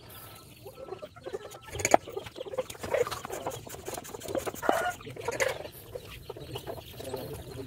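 Irregular clicks and knocks from plastic and metal parts of a hand-pump pressure sprayer being handled. A few short animal calls are mixed in.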